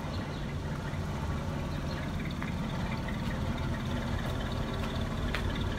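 1962 Eureka hearse's Cadillac V8 engine idling steadily, an even low rumble, with a few light clicks over it.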